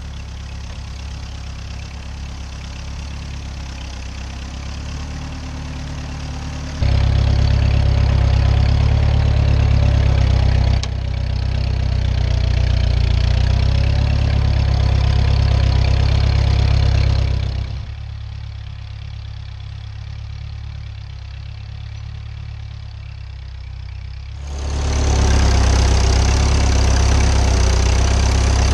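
Ford 8N tractor's four-cylinder engine running steadily while plowing, running properly with its carburetor cleaned of a rust-clogged float needle. Its loudness changes suddenly several times, with louder stretches in the middle and near the end.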